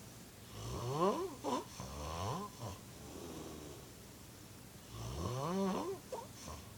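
A person snoring loudly: two long snores, each rising in pitch, about half a second in and again about five seconds in, with quieter breathing between them.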